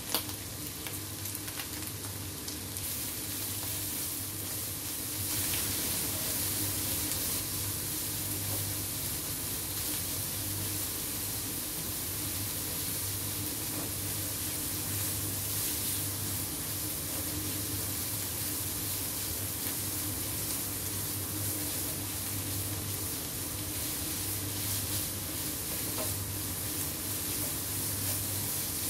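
Shrimp, meat strips, carrot and fish cake slices sizzling in oil in a nonstick wok while a silicone spatula stirs and turns them; a steady sizzle that grows louder about five seconds in.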